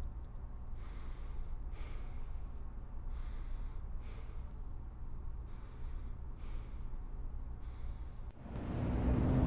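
A sleeping person's breathing: soft, regular breaths in and out, about one a second, over a steady low hum. Near the end a much louder low rumble swells in.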